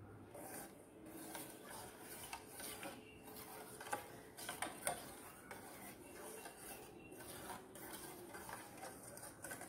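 A spoon stirring liquid in a stainless steel saucepan, with light scrapes and clinks against the pan, as grated palm jaggery is mixed into a hot herbal decoction.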